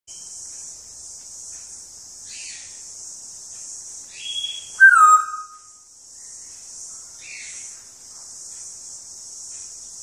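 African grey parrot whistling: a short high note about four seconds in, then a louder whistle that slides down in pitch, with a couple of soft rough calls before and after. A steady high hiss runs underneath.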